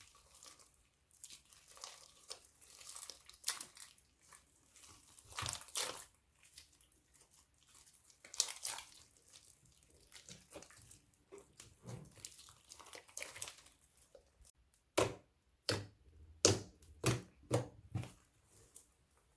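Crunchy slime being squeezed and worked by hand, crackling and popping irregularly, with a run of sharper, louder pops near the end.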